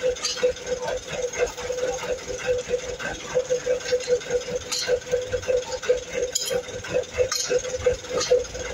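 A small motor runs steadily with an even pulsing hum, about three pulses a second, under a few sharp metallic clinks as a steel well pipe is turned by hand with a bar wrench during manual well drilling.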